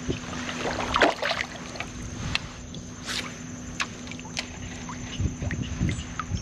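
Water sloshing and dripping around a kayak hull and a paddle blade resting on the surface, with scattered small splashes and clicks.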